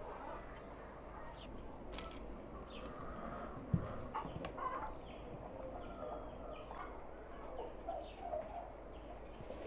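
Domestic chickens clucking with short, scattered calls, with a few light clicks and a single sharp thump a little under four seconds in.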